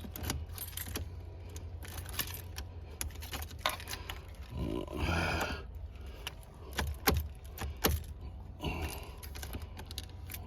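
Car keys jangling, with irregular light clicks and knocks, as a key is handled and worked into a car's ignition lock cylinder. A short muffled voice sound comes about halfway through.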